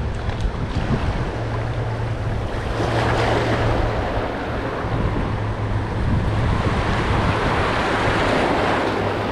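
Wind buffeting the microphone over waterside noise, with a steady low hum underneath. The noise swells about three seconds in and again around eight seconds.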